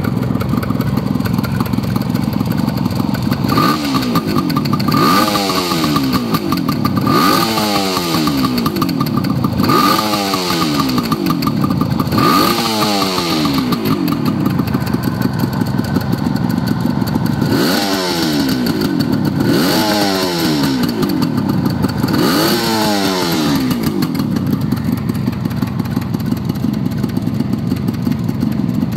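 Suzuki GT380's air-cooled two-stroke three-cylinder engine idling, then revved in quick blips, each rising and falling in pitch: five in a row, a short idle, then three more, before it settles back to idle near the end. It revs freely with no abnormal engine noise at idle or when revved, which the seller takes as the sign of an engine in very good condition.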